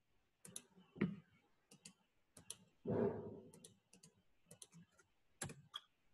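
Irregular clicks of a computer keyboard and mouse, with a louder, duller knock about three seconds in.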